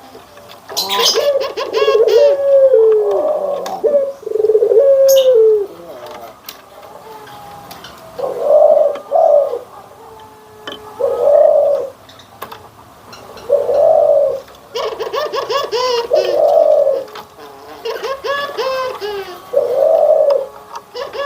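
Puter doves (Barbary doves) cooing: a string of low, rolling coos repeated with short pauses between them.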